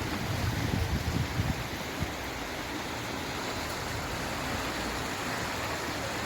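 Floodwater rushing in a swollen river, a steady even rush.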